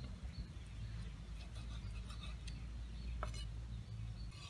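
Knife and metal tongs working pieces of pig intestine on a wooden chopping board: scattered light taps and clicks, over a low steady rumble.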